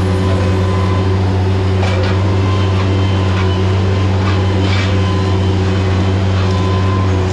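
Mini excavator's diesel engine running steadily at a constant pitch, with a few faint crackles over it.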